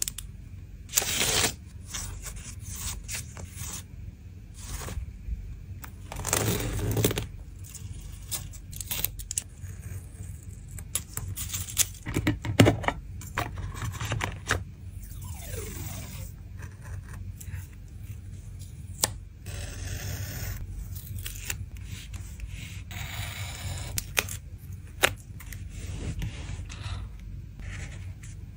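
Close-up stationery handling: plastic-sleeved sticker packs crinkling, washi tape rolls clicking against each other in a tin, and a marker stroking across paper. It comes as a run of short crinkles, taps and scrapes, with a few louder rustles.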